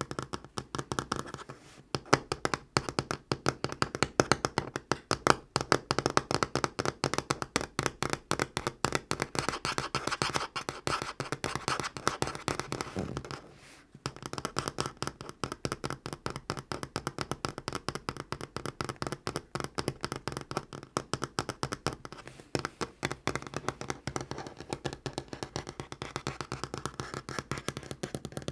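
Natural fingernails tapping fast on a tabletop: a rapid, steady stream of light clicks, with brief pauses about two seconds in and again about halfway through.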